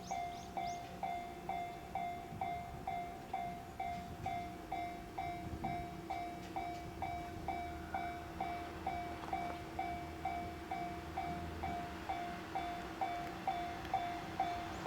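Japanese level crossing's warning bell dinging steadily a little over twice a second, as a KiHa 110 diesel railcar approaches. The railcar's low engine rumble builds beneath the bell from about four seconds in.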